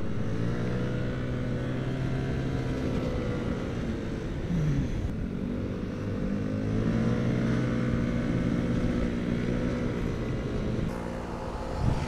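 Yamaha automatic scooter engine running under way, its pitch rising and falling several times as the throttle opens and closes through a run of curves.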